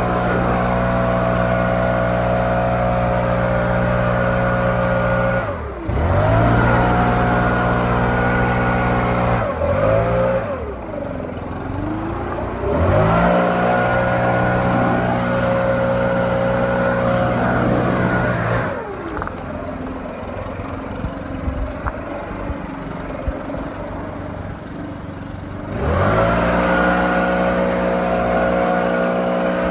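Stihl BR700 backpack leaf blower's two-stroke engine running at full throttle. It drops to idle and revs back up a few times, with a long idle stretch in the second half before throttling up again near the end.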